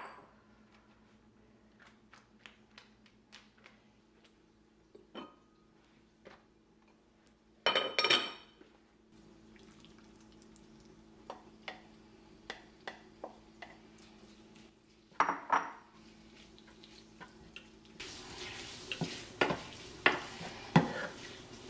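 Kitchen clatter of dishes and utensils: scattered clicks and knocks, with two loud bursts of clanking about a third and two thirds of the way in. Near the end a soft steady hiss comes up as raw pork slices go into a non-stick frying pan, with a wooden spatula knocking and scraping on the pan as the meat is stirred.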